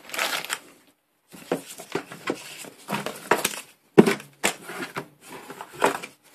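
Plastic bag packaging crinkling and paper sheets rustling as the contents of a cardboard box are handled, in irregular bursts with a few clicks and a knock about four seconds in.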